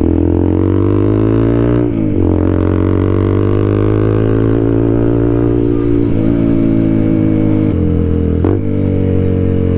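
TVS Apache RTR 200 4V's single-cylinder engine shrieking through a full-system aftermarket exhaust under hard acceleration. The revs climb, drop sharply at upshifts about two seconds in and near the end, and dip briefly about six seconds in.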